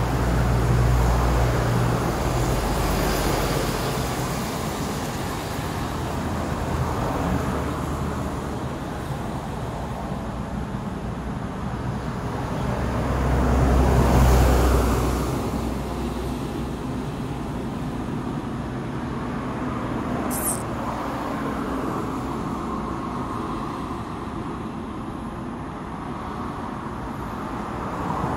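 Steady road traffic from a nearby highway, with passing vehicles swelling louder about a second in and again around fourteen seconds in.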